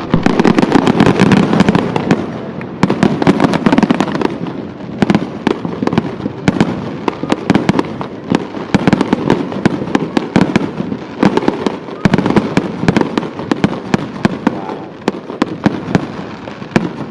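Festival fireworks going off: a dense, continuous run of sharp cracks and pops over a steady rumbling wash.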